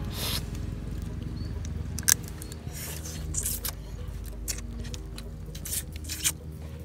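Grilled crab claw shells cracked and picked apart by hand while the meat is chewed: scattered sharp clicks and crunches, with one loud crack about two seconds in.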